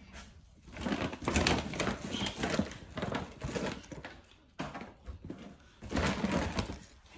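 Rustling and crinkling of packaging as purchased items are handled, in several spells of a second or so with short pauses between.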